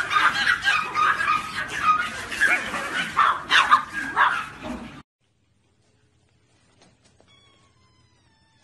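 A large pack of Pomeranian puppies yipping and barking all at once, a dense high-pitched chorus that cuts off abruptly about five seconds in. Near the end, a faint kitten meow.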